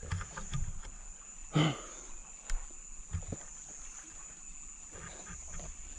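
Steady high-pitched insect drone, with scattered light knocks and scuffs and a short grunt-like voice sound about a second and a half in.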